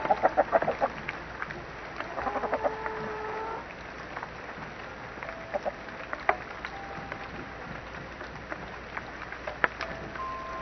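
Chicken clucking in a quick run of short notes in the first second, then a longer drawn-out call about two to three seconds in. After that only a few faint short tones and clicks.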